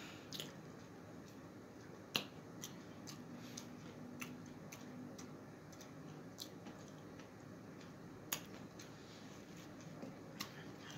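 Faint, scattered sharp clicks and smacks of someone eating: mouth and lip sounds while chewing, about eight in all.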